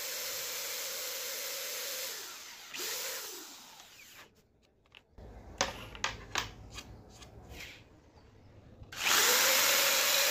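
Electric hand drill boring a hole through a wooden board, running steadily and then winding down about two seconds in. A few light knocks follow, and the drill starts up again near the end.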